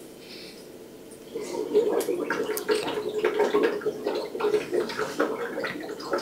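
Irregular bubbling and gurgling that starts about a second in, as beer begins to flow from a CO2-pressurized Fermonster fermenter through the transfer tubing into a keg during a closed transfer.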